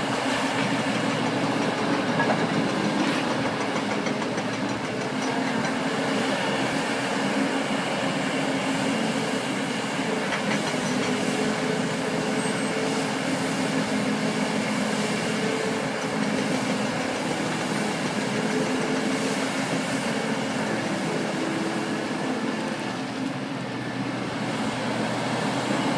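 Heavy diesel mining machinery running steadily: a constant engine drone with a few sustained hum tones over dense mechanical rattle and clatter.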